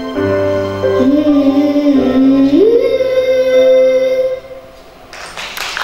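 A young girl sings the closing phrase of a song over instrumental accompaniment, climbing to one long held final note. The music stops about four seconds in, and applause starts just before the end.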